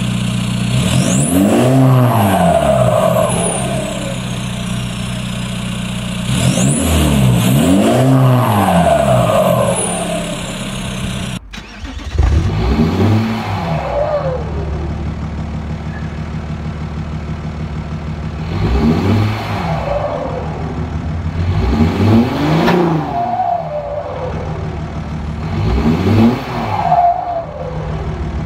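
A straight-piped TDI diesel with a single large exhaust tip is revved twice from idle, with a turbo whistle rising and falling on each rev. After a cut, a straight-piped Audi A4 2.5 TDI V6 diesel idles and is blipped several times in short revs.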